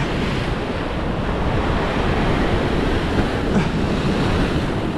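Sea waves surging and breaking against shoreline rocks just below, a steady wash of surf, with wind buffeting the microphone.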